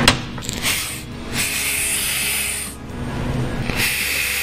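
Cordless ratchet motor whirring in two short runs, spinning out the 10 mm connecting-rod cap bolts of a Kohler CH25 twin-cylinder engine.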